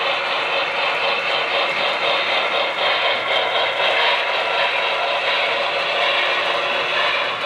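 HO scale model trains running on the layout: a steady clatter and rattle of small wheels over track, with the whir of the locomotive motors.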